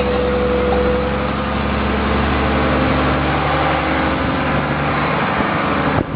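Dive boat's engine running steadily, with a rushing noise over it; it cuts off near the end.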